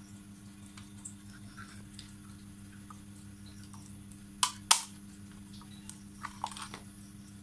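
Small clicks and ticks of a hand screwdriver driving a screw into a plastic car door handle housing. Two sharp clicks about four and a half seconds in are the loudest, followed by a few lighter clicks a little after six seconds, over a steady low hum.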